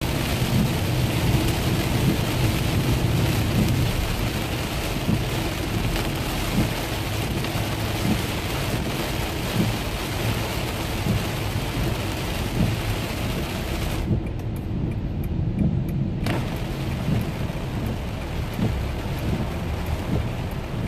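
Heavy rain beating on a car's windscreen and roof as it drives, with a constant low rumble underneath. For about two seconds just past the middle the rain hiss drops out, leaving only the low rumble.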